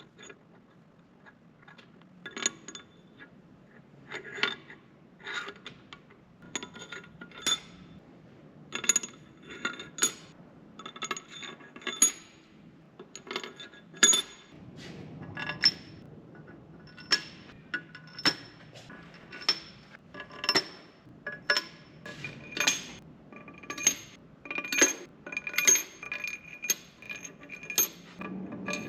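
Metal tools and cylinder-head bolts clinking on a 12-valve Cummins engine as the head is bolted down, one or two sharp ringing metallic clinks a second, coming faster and ringing more near the end.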